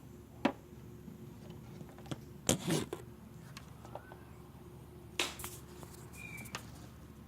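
Scattered sharp clicks and clinks of a wrench and metal parts being handled while a replacement alternator is bolted in and wired up: a single knock about half a second in, a quick cluster around two and a half seconds, and another just after five seconds.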